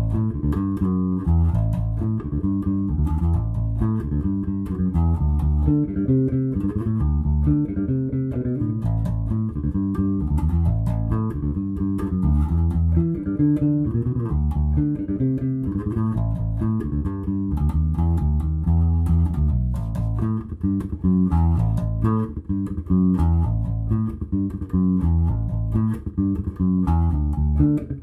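Five-string Tensor electric bass with Lace Alumitone pickups playing a riff of short plucked notes, with the pickup blend set in the middle and the tone control rolled back a little.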